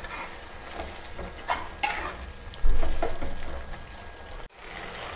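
Metal spatula scraping and knocking against a stainless steel pan while stirring grated bottle gourd and sugar into a moist halwa mixture, with several sharper knocks in the middle.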